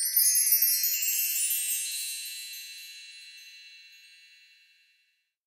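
Wind-chime sound effect: a shimmering cascade of high tinkling notes that rings on and fades away, dying out about five seconds in.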